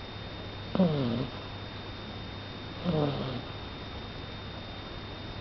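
Chow chow puppy snoring in its sleep: two short snores about two seconds apart, each sliding down in pitch, with a third starting right at the end.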